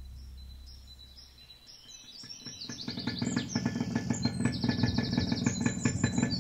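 Birds chirping, then from about two seconds in a motorcycle engine pulsing rapidly and growing louder as the bike rides up and slows to a stop.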